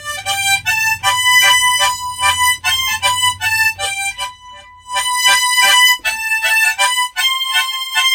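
G-key harmonica playing a slow melody with tongue-blocking: short rhythmic chord pulses, struck with the tongue, sound under each held melody note as a bass accompaniment.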